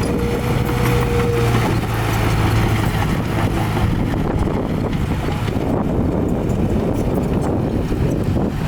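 Heavy earthmoving machinery engine running steadily under load, with a high steady whine that stops about a second and a half in.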